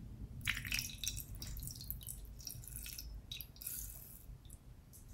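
White liquid poured from a plastic cup onto pink slime and foam beads in a glass bowl, dripping and splattering in an irregular run of small crackling splashes that start about half a second in and die away near the end.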